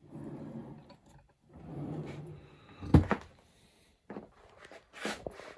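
Cabinet drawer sliding on its runners twice, then a sharp knock about three seconds in, followed by a few lighter knocks and rattles as it is handled.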